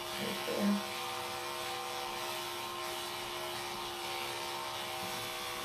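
Electric grooming clippers buzzing steadily as they trim a Bichon Frise's coat.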